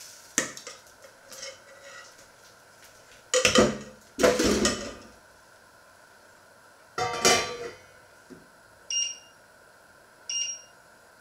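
Metal cookware clattering as pots, a ladle and a pan lid are set down on the stove, loudest about three and a half to five seconds in and again about seven seconds in. Then two short beeps from the electric hob's touch controls as its setting is changed, about a second and a half apart.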